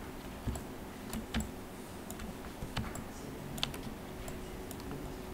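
About half a dozen faint, separate clicks of a computer keyboard and mouse, spaced irregularly a second or so apart, over a faint steady hum.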